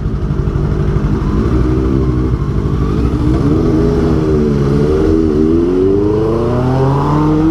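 Kawasaki ZX6R inline-four with an Austin Racing exhaust running, its pitch wavering up and down, then rising steadily over the last couple of seconds as it revs up.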